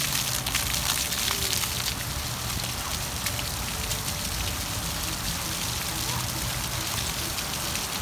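Water jets of a splash-pad fountain spraying up and spattering back onto wet paving, a steady hiss like rain.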